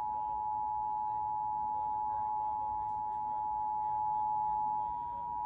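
Emergency Alert System attention signal: two steady tones sounding together as one harsh alarm, part of a Required Monthly Test.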